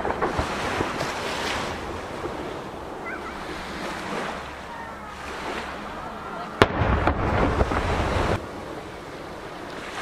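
Sea waves washing against a jetty, with wind on the microphone. About six and a half seconds in, a firework shell bursts with a sharp bang, followed by a low rumble lasting nearly two seconds as the report echoes back off nearby mountains.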